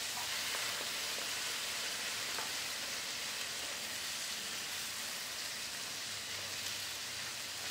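Oysters and scrambled egg frying in oil in a nonstick wok: a steady sizzle as they are stirred with a spatula.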